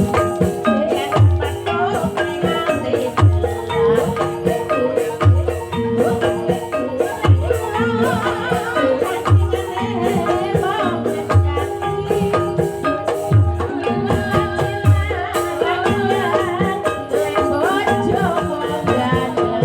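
Live Banyumasan gamelan accompaniment for an ebeg/lengger dance: struck mallet instruments playing interlocking melodic patterns over a deep drum beat about once a second, with a wavering vocal line about halfway through and again near the end.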